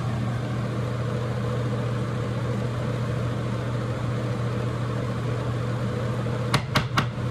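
Spray booth exhaust fan running with a steady motor hum and rush of air. Three light clicks come near the end.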